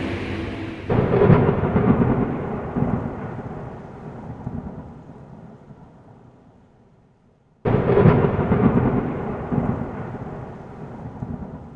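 Two rolls of thunder, each starting with a sudden clap about a second in and again near two-thirds through, then rumbling away over several seconds. A steady rushing noise comes just before the first clap.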